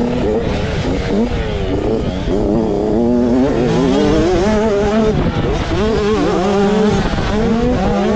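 A 65cc two-stroke motocross bike's engine revving hard under way, its pitch rising and falling again and again with throttle and gear changes, heard from on board the bike.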